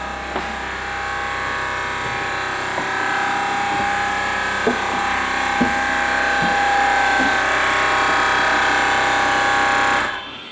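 A steady machine hum with a whine, growing gradually louder, with a few knocks of footsteps on wooden stairs. The hum cuts off suddenly near the end.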